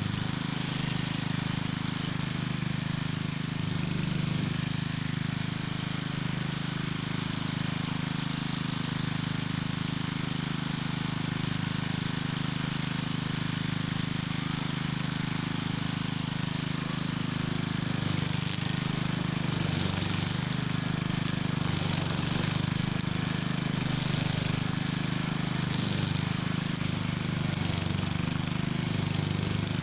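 Cub Cadet walk-behind string trimmer's small gasoline engine running steadily under load as its nylon line cuts through weeds, with scattered brief crackles in the second half.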